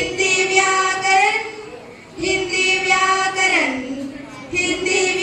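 A child's voice singing a Hindi song about Hindi grammar, in three long held phrases with brief breaks between them.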